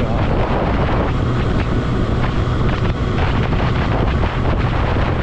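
Wind buffeting the microphone on a moving motorcycle, with the Kawasaki ZX-6R's inline-four engine running underneath at a steady cruising speed.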